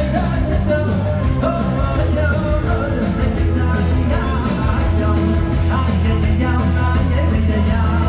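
Music with singing and a steady, sustained bass line.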